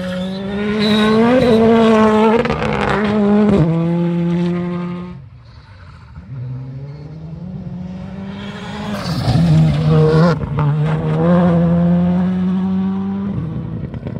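Rally car engine at high revs, the pitch holding and stepping through gear changes. About five seconds in the engine note drops away sharply for about a second, then climbs back and holds high revs again before easing off near the end.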